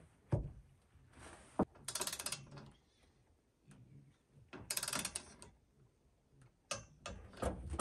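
Ratchet wrench clicking in two short runs about two and five seconds in, tightening roof-rack mount bolts to an even 10 foot-pounds. A few single sharp knocks on the metal rack come before and after.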